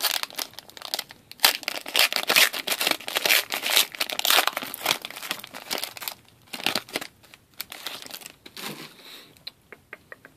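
Foil trading-card pack wrapper crinkling and tearing as it is opened, dense and steady for about the first six seconds. After that come sparser crinkles and clicks as the cards are pulled out and handled.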